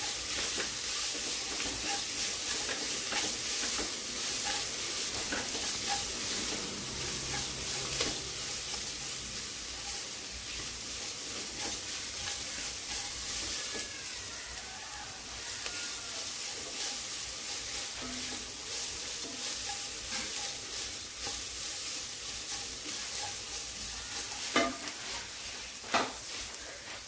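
Grated carrot and vermicelli sizzling in ghee in a metal pot while being stirred and scraped with a silicone spatula. Near the end come two sharp knocks.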